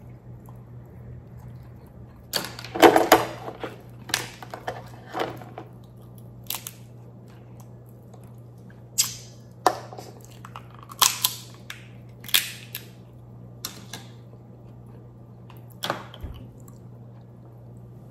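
Close-miked eating of Dungeness crab: shell cracking and crunching as it is pulled apart by hand, with chewing and mouth clicks. The loudest run of cracks comes about three seconds in, then single sharp clicks every second or two.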